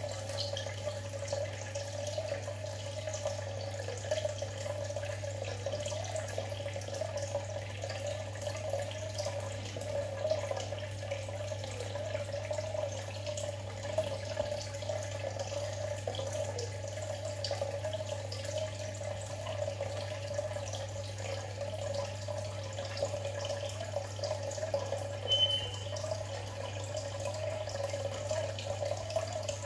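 Aquarium water trickling and dripping steadily, with a constant low hum underneath.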